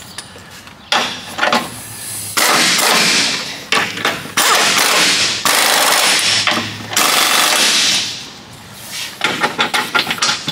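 Pneumatic impact wrench hammering in several bursts of one to two seconds, with short stuttering rattles near the end, running the 19 mm lower control arm bolts of a Mazda 3 snug before final torquing.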